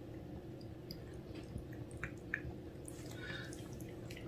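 Cat licking a liquid churu treat off a stick: soft, wet, irregular licking clicks over a faint steady hum.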